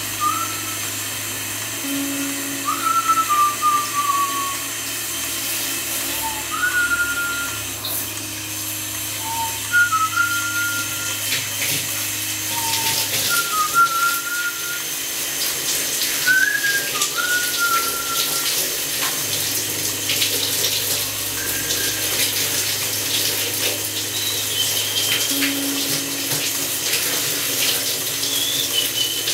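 A person whistling a tune in short, broken phrases with little slides in pitch, over the steady hiss of running water that grows louder about halfway through.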